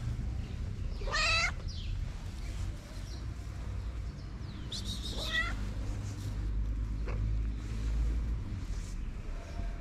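Calico street cat meowing twice, about four seconds apart, each a short call rising in pitch, as it asks for attention and food.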